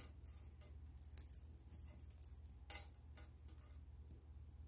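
Light, scattered clicks and clinks of metal rhinestone costume jewelry being handled and set down on a marble tabletop, about half a dozen in the first three seconds, over a faint low steady hum.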